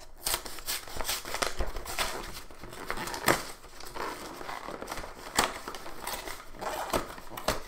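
Packaging of a Pokémon card collector box being worked open by hand, crinkling and scraping with sharp clicks and snaps at irregular moments. It is a stubborn box, tough to open.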